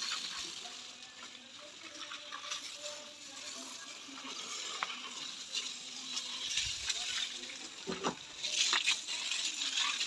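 Water from a garden hose spraying and splashing against a muddy backhoe loader's tyre and bodywork, a steady hiss. There is a thump about eight seconds in, and the spray gets louder just after.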